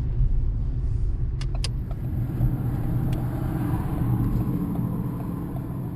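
Car cabin noise while driving: a steady low rumble of engine and road. Two short clicks come about a second and a half in.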